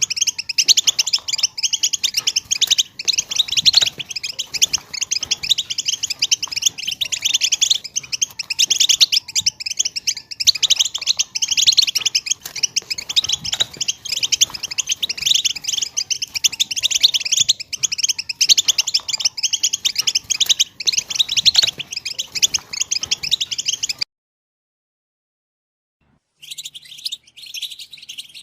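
European goldfinch singing its rapid, unbroken twittering song. It cuts off abruptly for about two seconds near the end, then resumes more faintly.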